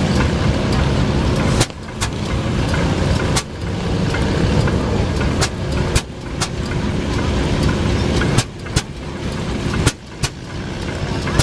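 Rumely OilPull tractor engine running with a heavy low exhaust note, broken every second or two by a sharp crack and a brief dip in level.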